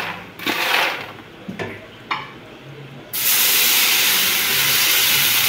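Salted water poured over a hot aluminium tray of oven-roasted peanuts, hissing into steam: the hiss starts suddenly about three seconds in and holds steady. Before it, a few light scrapes of a wooden spoon stirring the peanuts in the tray.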